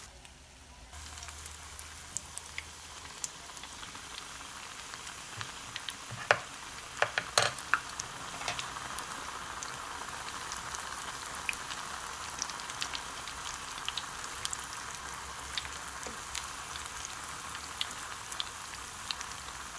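Battered sausages on sticks deep-frying in a skillet of very hot oil: a steady sizzle with scattered crackles and pops, a few louder pops about a third of the way in.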